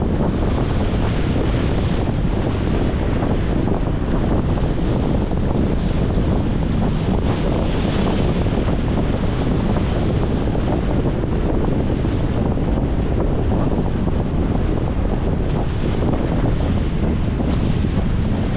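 Strong wind buffeting the microphone in a steady low rumble, with choppy waves washing and slapping against a concrete shore wall.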